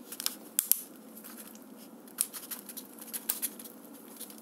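Gypsum plaster powder being shaken from a bag into a plastic cup of water: the bag crinkles and the cup is handled, giving scattered sharp crackles and light rustling.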